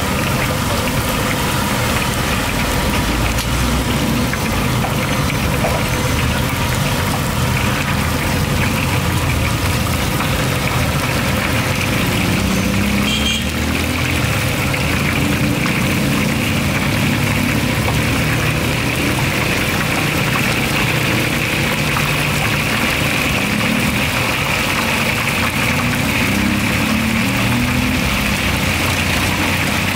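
Steady roadside noise: engines running, under a continuous sizzling hiss of hot oil deep-frying food.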